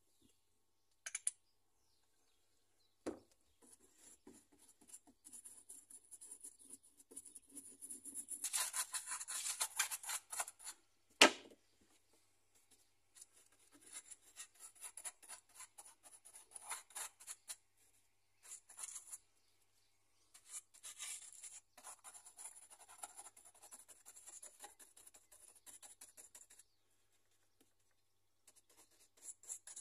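Paintbrush dabbing and scrubbing paint onto a rough foam model mountain, a dry scratching in short irregular strokes. Two sharp knocks, the louder one about eleven seconds in.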